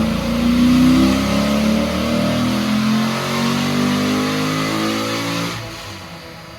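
Corvette C6 Z06's 7.0-litre naturally aspirated LS7 V8, fitted with new heads and a big camshaft, pulling hard under acceleration, its pitch rising steadily. Near the end the engine comes off the throttle and the sound drops away.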